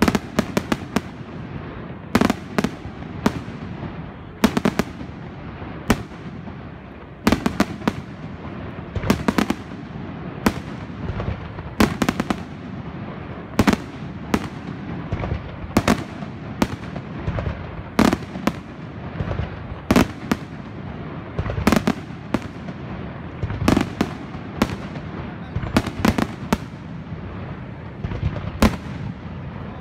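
Aerial fireworks display: shells bursting in rapid succession, sharp loud bangs coming roughly once a second, often in quick doubles or clusters, over a continuous rumble and crackle.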